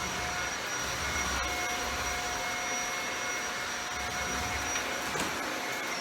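Shark Rotator Powered Lift-Away upright vacuum cleaner running steadily, a dense motor rush with a steady high whine.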